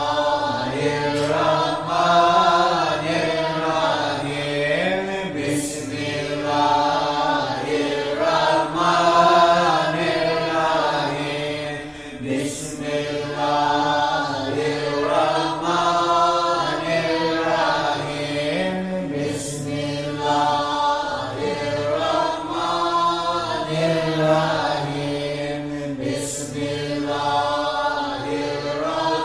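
Group of voices chanting a Sufi devotional chant in unison over a steady low drone, with a short hiss recurring about every seven seconds.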